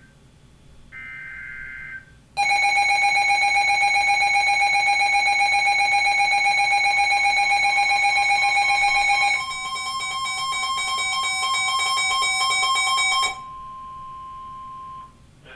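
NOAA Weather Radio emergency alert coming in. It opens with a short burst of the warbling two-tone SAME data header. Then a weather radio receiver sets off a loud, evenly pulsing electronic alarm that changes pattern about seven seconds later, over the steady warning tone, which is heard alone for a moment near the end.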